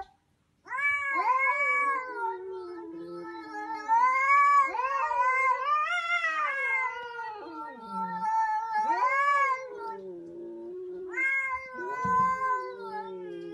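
Two cats yowling at each other in a face-off: long, drawn-out caterwauls that waver and bend in pitch. They start about a second in, with a short break near the end.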